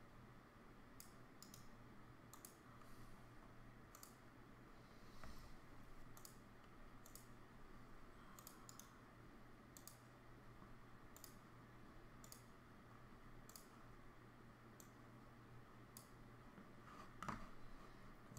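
Faint computer mouse clicks, roughly one a second at an uneven pace, over a low steady hum of room tone.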